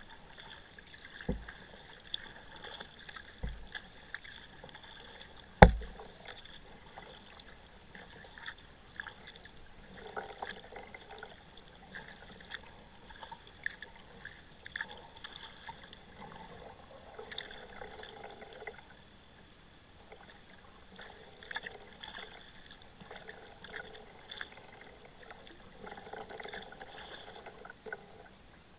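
Kayak paddling on calm water: paddle blades dipping and water trickling and dripping off them in intermittent spells, with a few knocks against the kayak, the loudest about six seconds in.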